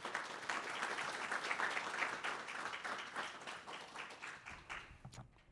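Audience applauding a speaker as she comes to the podium: many people clapping together, tapering off about five seconds in.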